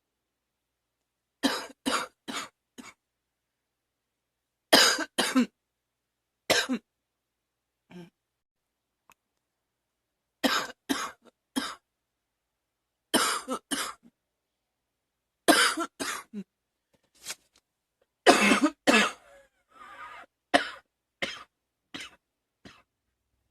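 A girl coughing in repeated fits of two to four quick coughs each, a new fit every two to three seconds, with weaker coughs near the end.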